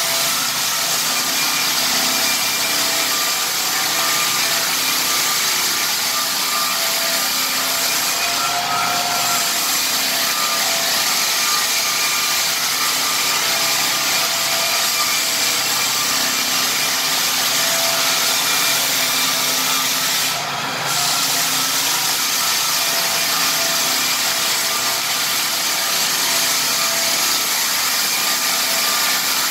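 Lägler Hummel drum floor sander running steadily, its drum sanding across rift red oak floorboards. The sound dips briefly about two-thirds of the way through.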